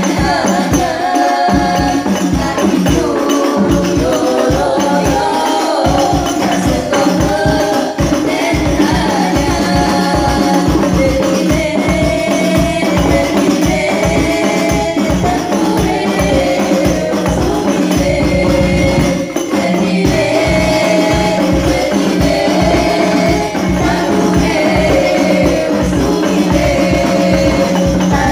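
Women's voices singing sholawat, an Islamic devotional song, together into microphones, over rebana frame drums beating a fast, steady rhythm.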